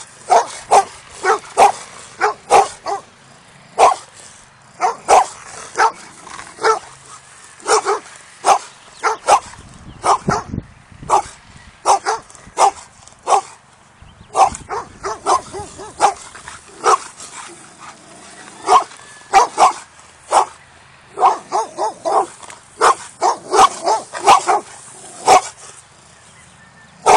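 Dogs barking repeatedly in short, irregular runs of barks with a few pauses of about a second. It is hostile, territorial barking at someone on the other side of a fence.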